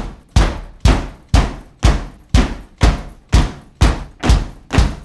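Opening of a rock band's recorded song: loud, heavy struck hits, about two a second, each ringing out and fading away before the next.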